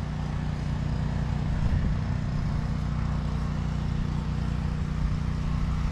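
Steady low mechanical hum, like a motor running, with no change in pitch or level.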